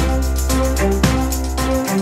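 Instrumental background music with a sustained bass line, keyboard chords and a steady drum beat.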